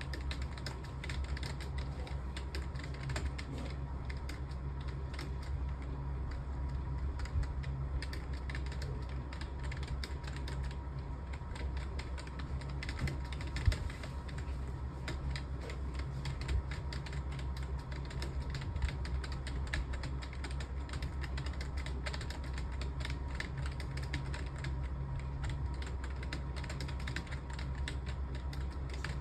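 Fast, continuous typing on a computer keyboard: a dense run of key clicks with one louder knock about halfway through, over a steady low hum.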